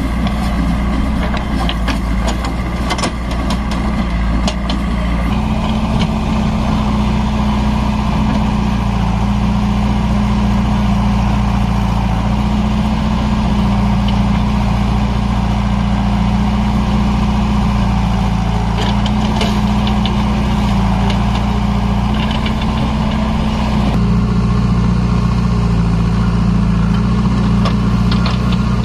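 Diesel engines of a JCB 3DX backhoe loader and a Mahindra 575 DI tractor running steadily, with loads of soil and stones clattering into the steel tractor trolley at times.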